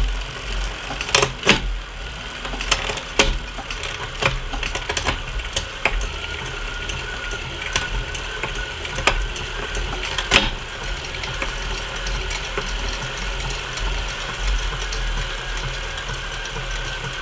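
Bicycle drivetrain running on an indoor trainer while a SRAM AXS 12-speed rear derailleur shifts across a Shimano Ultegra 12-speed cassette, with a steady low hum and many sharp, irregular chain clicks. A few cogs don't line up properly with the SRAM shifting, so the chain clicks on them. A steady thin whine comes in about six seconds in.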